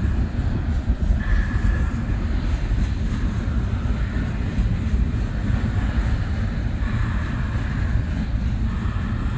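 Double-stack intermodal container cars rolling past on steel rails: a steady, loud rumble of wheels on track, with a higher note that comes and goes every second or two.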